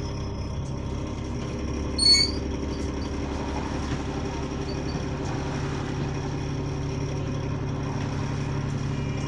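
A bus's diesel engine idling steadily, heard from inside the passenger cabin as a low hum. A short, loud electronic beep about two seconds in.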